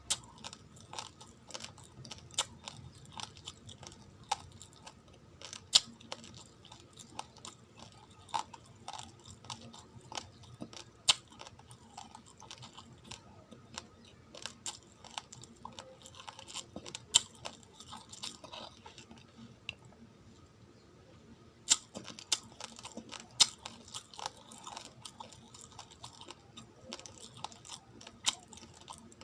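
Raw, uncooked rice grains being chewed: irregular sharp crunches and cracks, with a short quieter spell about two-thirds of the way through.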